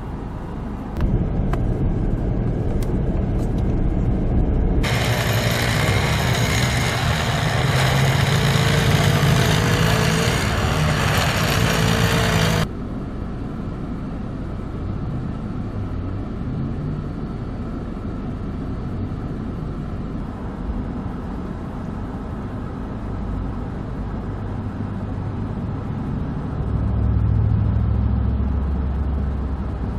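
Car stuck in deep snow revving, its tyres spinning in place with a loud hiss and a wavering whine for about eight seconds, then cutting off suddenly. After that, steady vehicle engines run, with a low engine rumble near the end.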